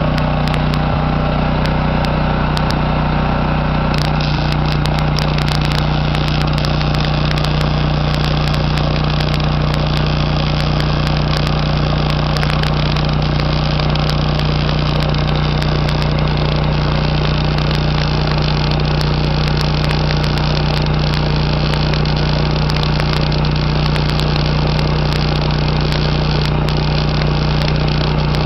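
MIG welding arc from a Lincoln Electric 140 HD welder running solid hardwire, crackling in quick irregular clicks as a bead is laid uphill. A steady low drone runs under it.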